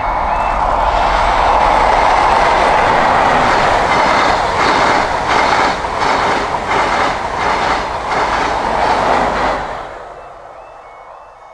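Midland Pullman High Speed Train passing at speed: a steady rush of train noise, with rhythmic clickety-clack of wheels over rail joints, about two a second, through the middle of the sound. It fades away near the end.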